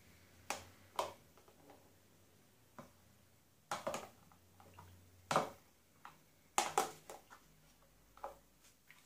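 Metal spoon clicking and scraping against a plastic tub and a glass bowl as pitted sour cherries are scooped across, a dozen or so sharp, irregular taps.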